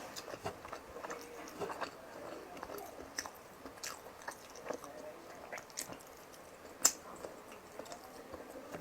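Close-up mouth sounds of someone chewing soft, saucy fish and rice: wet smacks and small clicks at an uneven pace, with one sharper click about seven seconds in.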